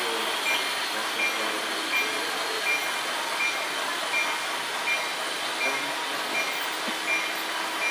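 Steady running noise of an H0 model railway layout, with a short high electronic beep repeating evenly, about once every 0.7 seconds.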